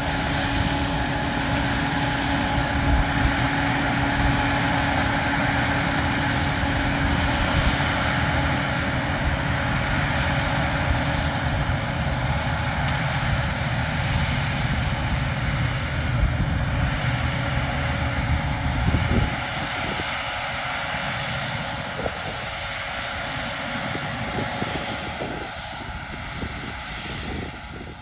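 Diesel engine of large farm machinery running steadily; its low rumble drops away about two-thirds of the way through, as if the engine throttles down or moves off.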